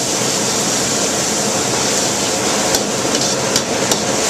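Food sizzling steadily in a very hot wok over a restaurant wok burner, with a metal wok ladle clinking sharply against the wok a few times in the second half.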